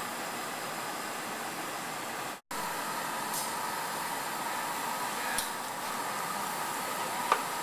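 Steady roar of a gas-fired glory hole burner in a glassblowing studio. The sound cuts out briefly about two and a half seconds in, and a couple of light clicks come later.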